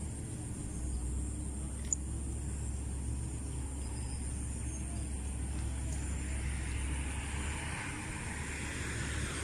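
Steady rumble of road traffic, with the hiss of a passing vehicle swelling over the last few seconds.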